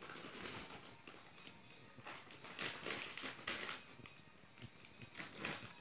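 Plastic snack packets and a clear plastic bag being handled, crinkling and rustling in bursts, busiest from about two seconds in until near the end.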